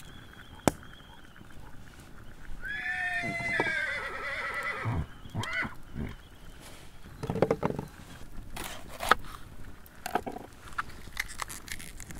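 A long animal call about three seconds in, starting high and falling in pitch, followed by a shorter call that rises and falls. A few sharp clicks sound at the start and later on.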